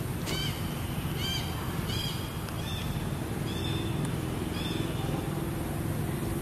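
A series of about six short, high chirping calls, each rising then falling in pitch, repeated roughly once a second, over a steady low hum.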